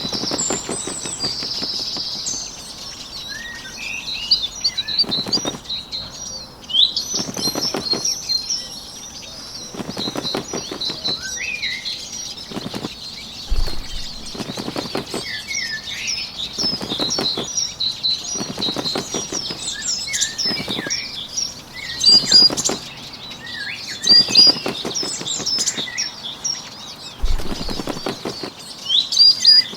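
Bird wings flapping in repeated bursts every second or two, over small birds chirping throughout.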